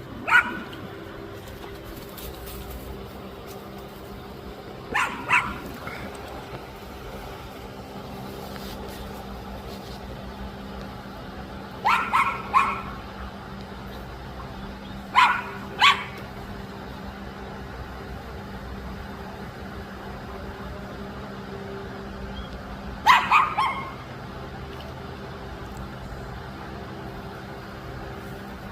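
A dog barking in short bursts, about five times over the stretch, several of them two or three quick barks together, over a steady low hum.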